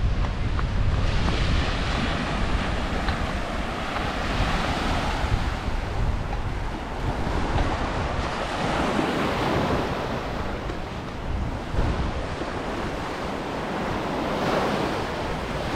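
Sea waves breaking and washing onto a beach, the wash swelling and fading about every five to six seconds, with wind buffeting the microphone.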